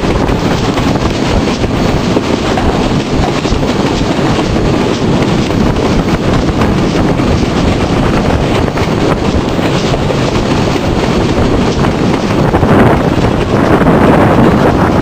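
V-820 steam locomotive running along the line, heard from its cab as a loud, steady rush of running noise with heavy wind buffeting the microphone, a little louder near the end.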